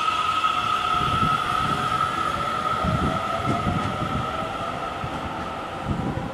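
Seibu 30000-series electric train accelerating away from the platform, its VVVF inverter traction motors giving a steady high whine while a second, lower whine rises in pitch, over the low rumble of wheels on rail. The steady whine fades out shortly before the end.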